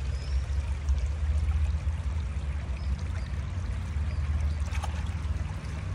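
Small river's water running steadily, with a constant low rumble underneath.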